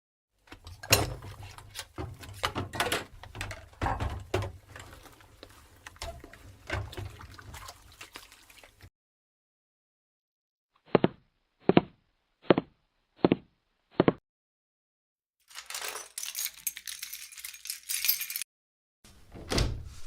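Dishes clinking and rattling under running water, as plates are washed at a sink. After a pause come five short, evenly spaced beeps, then a few seconds of hissing noise and a knock near the end.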